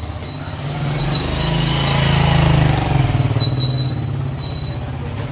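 A motor vehicle passing close by, its engine hum and noise growing louder to a peak about halfway through, then fading away.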